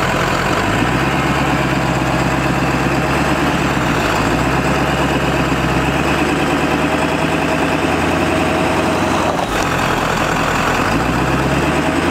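1997 Ford F-350's 7.3-litre PowerStroke V8 turbodiesel running under light throttle in drive with four-wheel-drive high engaged. The engine note rises about a second in, dips briefly twice (around four seconds and near the end), and otherwise holds steady.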